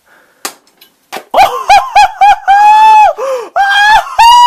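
A man whooping in a high falsetto: four quick short whoops, then longer held cries, the last one held steady for about a second and a half. It starts about a second and a half in, after a moment of near quiet.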